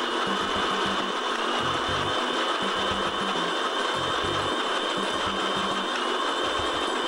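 Electric countertop blender running steadily, grinding fried onion and sour yogurt into a paste.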